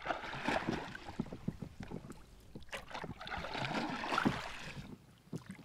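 Wooden oars of a small rowboat being rowed, pulling and splashing through lake water in two strokes about three seconds apart, with small clicks and knocks.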